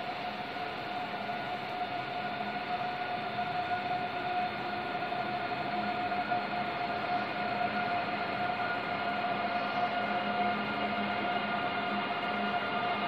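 Steady hum and hiss of a large train station hall, with a held mid-pitched tone and fainter tones above and below it, slowly growing louder.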